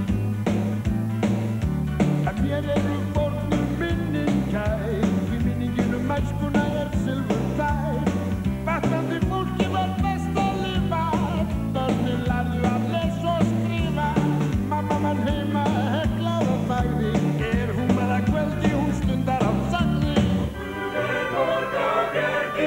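Band playing an upbeat rock-and-roll-style song with a steady, moving bass line. About twenty seconds in the bass drops away and the sound thins.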